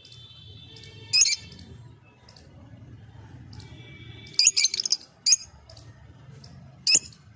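Lovebird giving short, sharp, shrill chirps: one about a second in, a quick run of several a little after the middle, then single chirps soon after and near the end, over a low steady hum.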